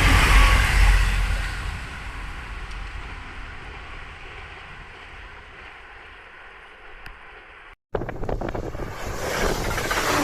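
E259 series Narita Express electric multiple unit passing, its running noise fading away over the first few seconds. The sound cuts out for an instant about eight seconds in, then a rush of noise builds again toward the end.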